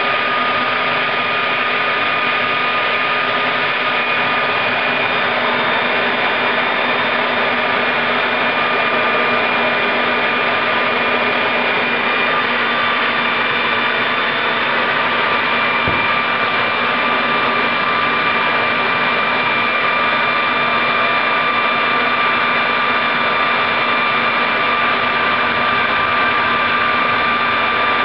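Homemade gas turbine built from a Caterpillar turbocharger, its wheel spinning at speed: a loud, steady rush of air with an even high whine.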